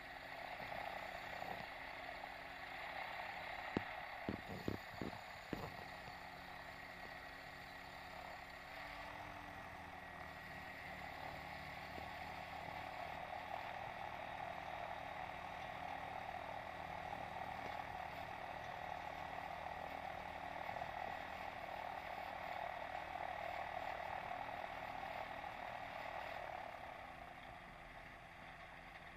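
Muffled, steady drone of an ultralight aircraft's engine during taxi, heard from a microphone inside a pilot's headset, with a few sharp clicks about four to five and a half seconds in.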